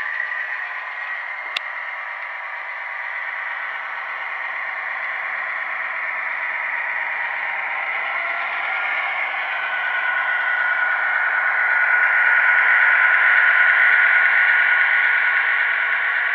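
Sound-equipped HO-scale MP15 model diesel locomotive playing its diesel engine sound through a small onboard speaker, thin and hissy, with a sharp click about a second and a half in. The engine sound grows louder in the second half.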